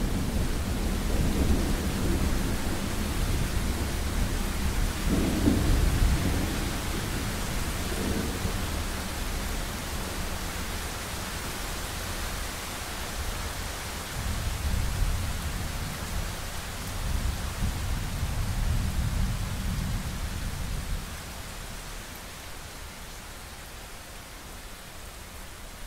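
Thunderstorm: deep rolling thunder rumbles over a steady hiss of rain. The rumble swells several times, then dies away near the end, leaving only the rain hiss.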